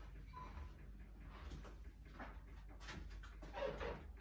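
Faint scrapes and light knocks of a wooden spoon against a small ceramic bowl as chopped green onions are tipped into a glass mixing bowl, with a brief, louder squeak-like sound near the end.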